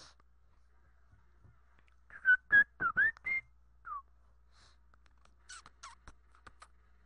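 A person whistling a quick run of short notes that slide up and down, then one falling note and a few fainter short ones near the end.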